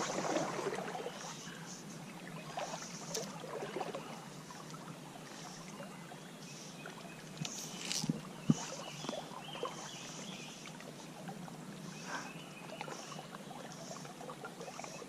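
Stream water sloshing around a wading angler, with a few small splashes and knocks. Short high chirps recur throughout, like birds calling at first light.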